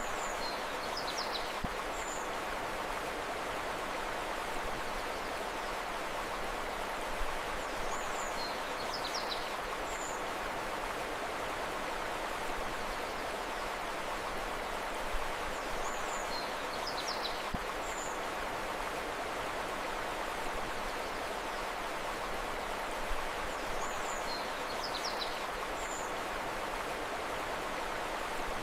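Steady rushing of a flowing river. A short burst of high bird chirps repeats about every eight seconds, identical each time, as in a looped recording.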